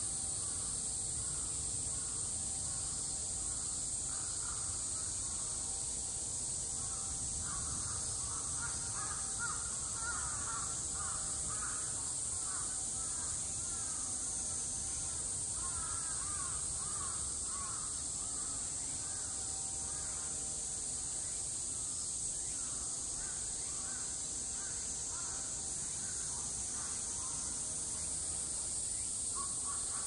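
Steady high-pitched insect drone with birds calling repeatedly over it, the calls busiest from about eight seconds in.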